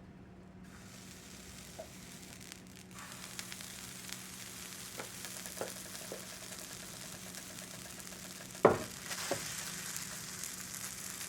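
Potato pancakes sizzling as they fry in a hot pan. A sharp knock comes about three-quarters of the way through, with a few light clicks around it, and the sizzling is brighter after it.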